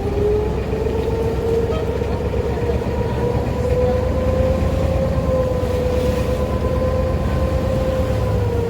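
Sampan's motor running steadily under way: a steady engine whine over a low rumble, wavering slightly in pitch.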